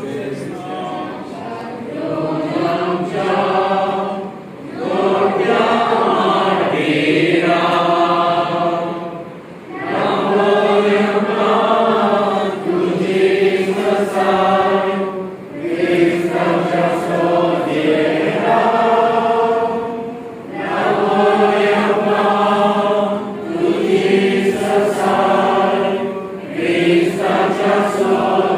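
A group of people singing a hymn together in phrases several seconds long, with short breaths between them.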